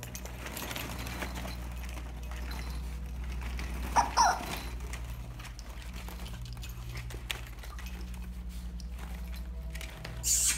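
Plastic ball-pit balls rustling and knocking together as two Schnauzers rummage through them, over quiet background music. A short squeak rises in pitch about four seconds in, and a brief hissy rustle comes just before the end.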